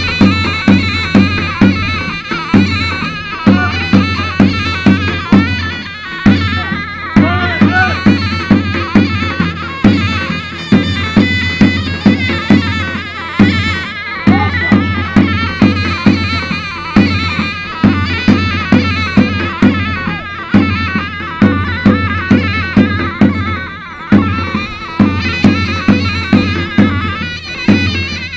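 Traditional Turkish folk dance music: a drum beating a steady, regular rhythm under a loud, reedy wind-instrument melody.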